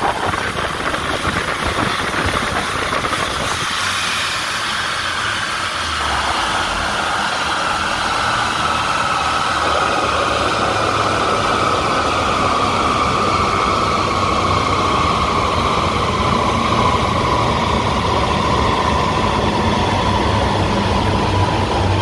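Subaru Forester 2.5 XT's turbocharged EJ255 flat-four running on a chassis dyno, heard at the tailpipe with the rear silencer removed. A steady whine over the engine slowly drops in pitch.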